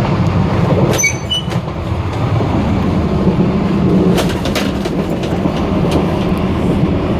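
Steady rumble and rattle in the gangway between two cars of a moving Taiwan Railway local electric train, with a few brief high metallic squeaks about a second in and sharp clicks around four seconds.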